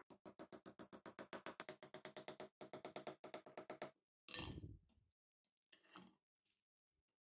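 Small steel hammer tapping a braided copper-wire cuff on a steel anvil in quick, light, even strikes, about eight a second, with a faint ring from the anvil. The taps pause briefly halfway through and stop at about four seconds. A single louder knock follows, then a fainter one.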